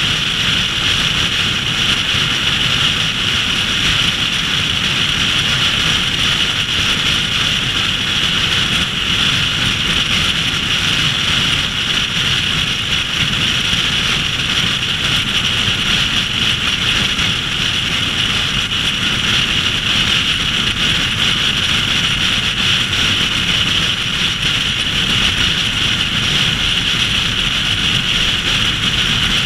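Car driving at highway speed: a steady rush of wind and tyre noise, with a bright hiss over a low road rumble.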